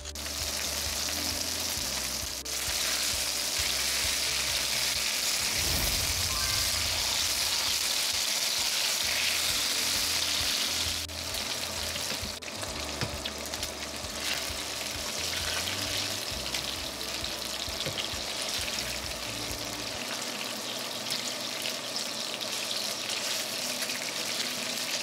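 Burger patties frying in oil in a pan, a steady sizzle.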